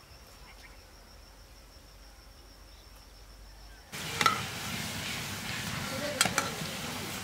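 A faint, steady high insect trill, then about four seconds in a sudden switch to loud frying in hot oil, sizzling with a few sharp clinks of a utensil.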